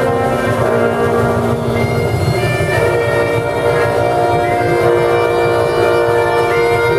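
Bagpipe playing a tune: melody notes from the chanter change every second or so over the steady, unbroken tone of the drones.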